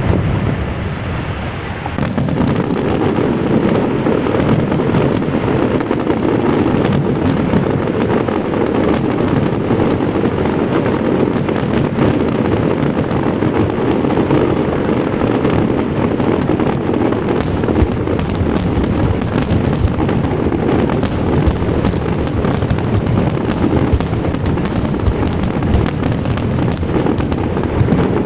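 Fireworks display: a dense, unbroken barrage of booming bursts, with a brief dip about a second in and sharper crackling reports joining from about halfway.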